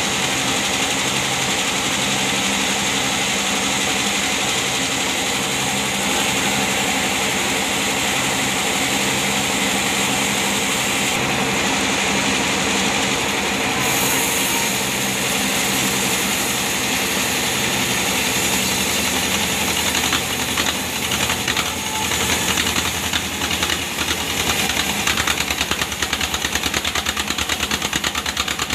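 Vertical band sawmill running, its blade cutting lengthwise through a large log: a steady machine drone under the hiss of the cut. In the last third the sound turns rougher, with a rapid pulsing.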